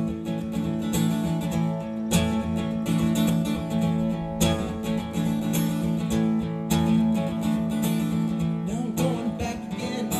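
Acoustic guitar strummed steadily in an instrumental passage between sung verses, with no singing.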